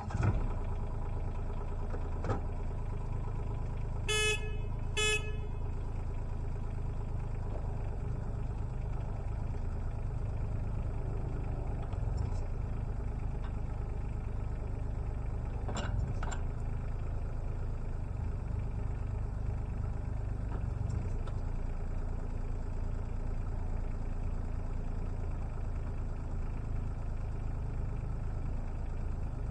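Bobcat E17 mini excavator's diesel engine starting up and then running steadily. Two short horn toots come about four and five seconds in, and there are a few sharp clanks from the machine as its arm works.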